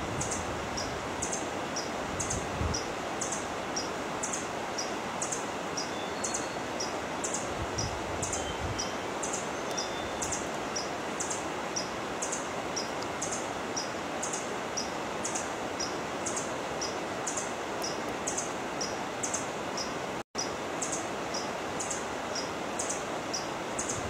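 Forest ambience: a steady rustling hiss of wind through leaves, with a short high-pitched chirp repeating at an even rate, more than once a second, and a few faint higher bird notes. The sound cuts out for a split second about 20 seconds in.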